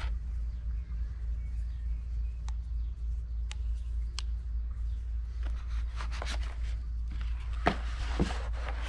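Handling noises of a camera gimbal and its mini tripod being lifted out of a foam-lined box: scattered light clicks and taps, busier in the second half, with two louder knocks near the end. A steady low rumble runs underneath.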